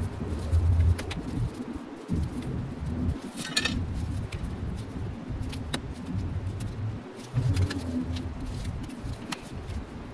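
Light scattered clicks and rustles of gloved hands working potting soil and pebbles in a glass planter, over a low hum that comes and goes.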